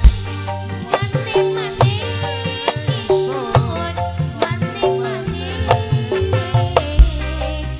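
Live Indonesian band music: a woman singing a wavering, ornamented melody over electric bass, guitar and a steady hand-drum beat.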